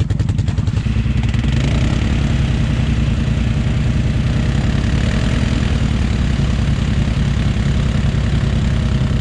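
ATV engine running: a lumpy idle that picks up to a steady, higher-revving run about a second in.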